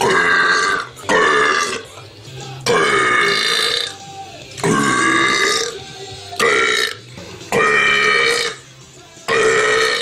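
A man's loud belches on command: seven in a row, each lasting half a second to over a second, with short pauses between.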